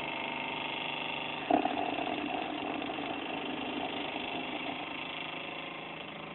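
Small 12-volt DC motor spinning a magnet flywheel, running with a steady hum and whine. About a second and a half in the sound suddenly gets louder, then slowly fades.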